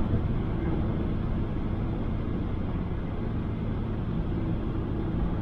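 Steady cabin noise of a 2006 Toyota Innova diesel with its 2.5-litre 2KD engine cruising on the highway: an even low rumble of engine, tyres and wind.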